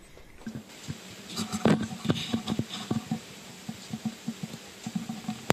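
Irregular crackling clicks, denser about a second in, over a faint steady hum: capacitor leads being pressed against the microphone capsule contacts on the recorder's open analog board.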